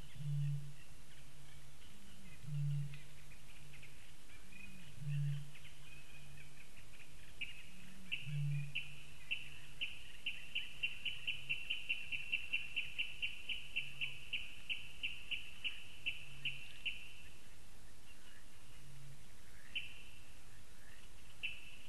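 Eurasian bittern booming: short, deep hoots about every two to three seconds, plainer in the first half and fainter later. Over them a small bird gives a run of high notes that speeds up from about eight seconds in and stops around seventeen seconds.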